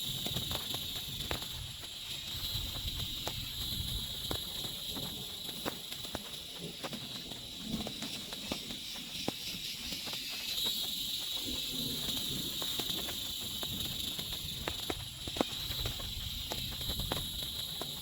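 Water drops tapping irregularly on a tent or tarp, many single taps at uneven spacing, over a steady high-pitched buzz and a low rumble.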